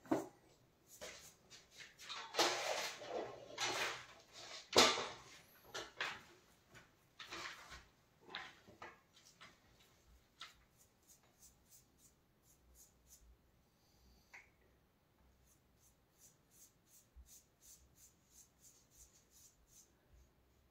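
Paintbrush stroking chalk paint onto a wall: a series of short, scratchy swishes, louder in the first half, then fainter, quicker dabs near the end.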